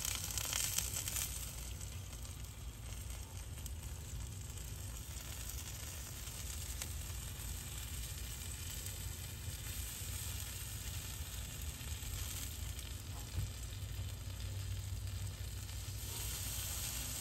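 Bacon-wrapped armadillo eggs (sausage-covered, cream-cheese-stuffed jalapeños) sizzling on a hot grill grate as barbecue sauce is brushed on: a steady sizzle, with brighter crackling in the first second or so.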